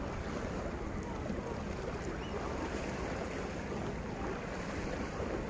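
Steady wash of small sea waves against a rock breakwater, with light wind on the microphone.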